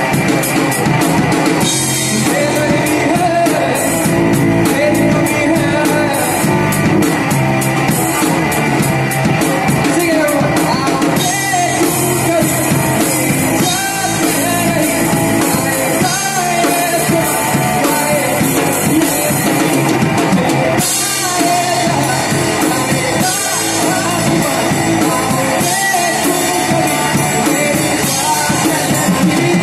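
Live rock band playing amplified electric guitars over a drum kit, with a vocalist singing into a microphone.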